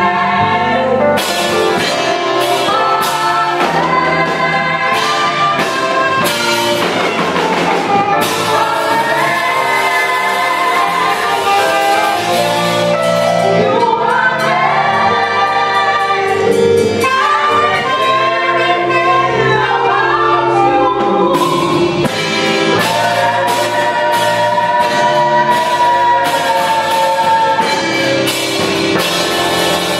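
Gospel praise team singing in harmony, with saxophone accompaniment.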